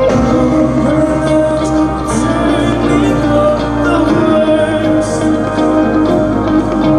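Live rock band performing: a male singer sings over sustained electric guitar and bass chords, with cymbal hits from the drum kit.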